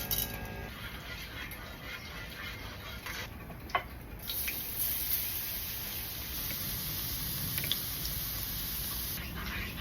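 Whole pimento (allspice) berries sizzling in hot coconut oil in a pot: a steady frying hiss with scattered small crackles and pops, the high hiss growing stronger about four seconds in.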